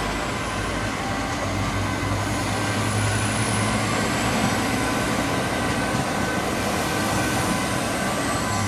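Two coupled LINT diesel multiple units pulling out of the station, their diesel engines running with a steady low hum.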